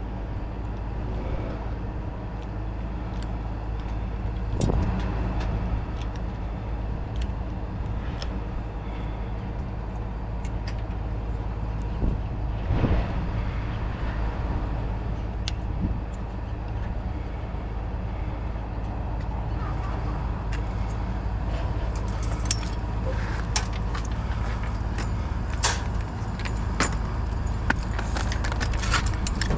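A vehicle's engine running steadily, with scattered clicks and rattles that grow busier in the second half.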